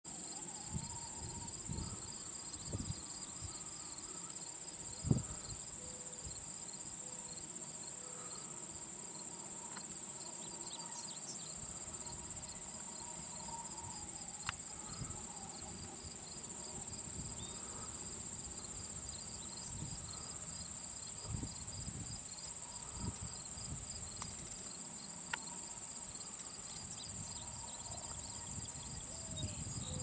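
Summer insect chorus: a steady, continuous high-pitched buzzing trill, with a second insect chirping in a regular pulse a few times a second beneath it. A single low thump about five seconds in.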